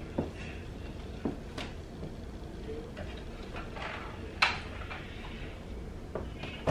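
Plastic toys and toy bins being rummaged through by hand: scattered light knocks and rattles, with a sharper clack about four and a half seconds in.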